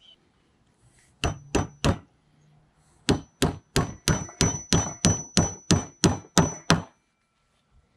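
Claw hammer driving 6d nails through a metal bracket into the end of a 2x4: three quick blows about a second in, then a run of about a dozen steady strikes, roughly three a second, each with a high metallic ring.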